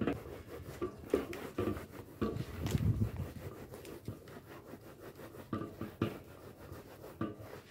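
Hands rubbing pressed cassava mash through a wooden-framed mesh sieve: a soft, irregular scratching and rubbing, with a few sharper knocks.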